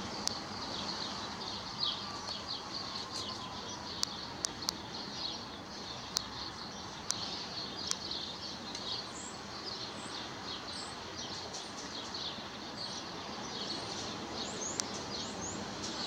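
Small birds chirping and twittering in many quick, high notes over a steady background hiss, with a few sharp clicks scattered through.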